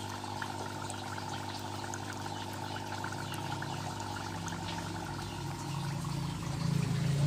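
Small water pump running with a steady low hum, with water pouring and trickling into a tarpaulin crayfish tank; the hum gets louder in the last few seconds.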